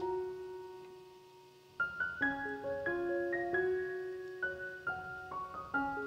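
Background piano music: a gentle melody of single notes, with one note held and fading for nearly two seconds before the tune picks up again.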